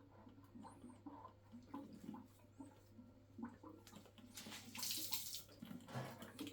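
Faint trickling and gurgling of water draining from an electric water heater's tank through a silicone tube on its pressure relief valve. A louder hissing rush comes about four and a half seconds in, with a shorter one near the end.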